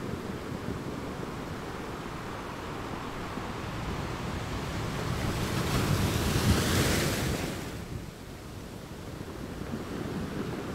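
Ocean surf breaking on a beach: a steady rush of waves, with one wave building and crashing louder about six to seven seconds in, then falling away quickly.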